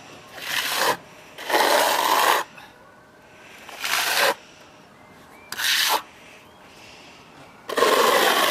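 Flat steel plastering trowel scraping wet silicone render across a wall, laying it on as thin as the trowel's edge. Five rasping sweeps, each half a second to a second long, then a longer one of about two seconds near the end.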